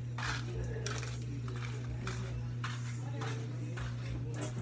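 Scattered light clinks and knocks of pots and dishes, about seven in all, over a steady low hum.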